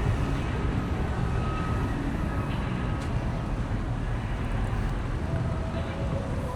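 Outdoor city ambience picked up by a wind-muffed clip-on microphone: a steady low rumble of wind and street noise.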